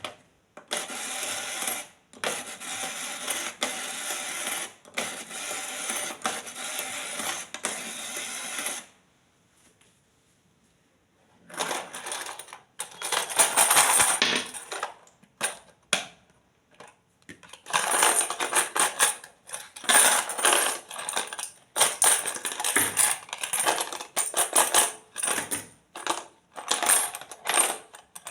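Packaging being handled during an unboxing: long runs of rustling and crinkling, a short pause about ten seconds in, then a quick series of short crackles and rustles.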